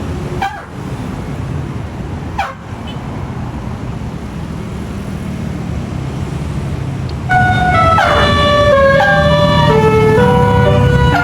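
Bus engine and road rumble, then about seven seconds in a tour bus's basuri telolet horn starts: several air-horn tones sounding together and stepping through the notes of a tune, loud.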